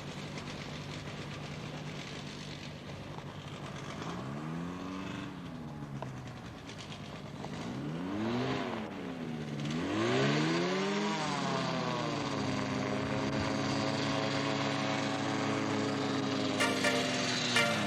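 Model airplane engine running, its pitch swinging up and down several times as it passes and changes throttle, then holding steady for several seconds before falling away at the end. A few sharp clicks come near the end.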